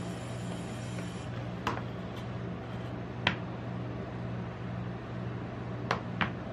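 Steady hum of a rolled-ice-cream machine's refrigerated cold plate, with four sharp clicks of metal tongs as ice cream rolls are set into a paper cup; the last two come close together near the end.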